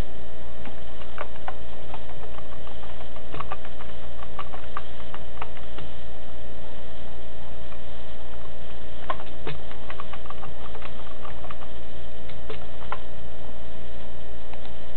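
Computer keyboard typing in two short runs of quick clicks, over a steady electrical hum.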